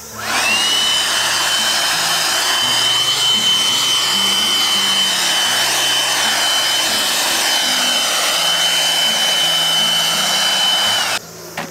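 Makita 18V cordless handheld blower switched on: its motor whine rises within half a second to a steady high pitch over a strong rush of air, runs evenly for about eleven seconds, then cuts off abruptly.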